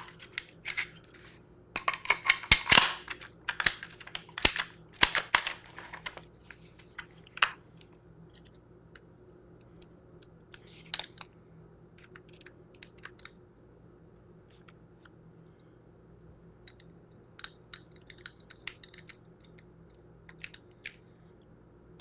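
Hard parts of a Nelspot 007 pump paintball marker clacking and clicking as it is put back together by hand, with a dense cluster of sharp knocks in the first several seconds. After that come sparse faint ticks as a screwdriver turns a screw into the grip frame.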